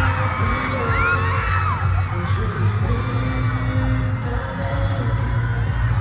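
Live pop song over a concert sound system, with a heavy bass beat and the crowd's voices screaming and singing along.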